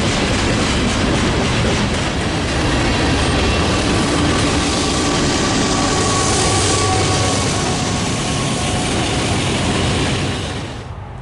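Railroad cars rolling past at close range: a steady, loud rumble and rush of steel wheels on rail, with faint thin wheel-squeal tones in the middle. The noise drops off sharply just before the end.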